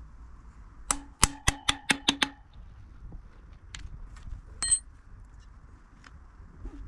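A hammer strikes about seven times in quick succession, each with a short ring, followed by a few faint clicks, knocking loose the expander cone on a Brompton's loosened stem bolt.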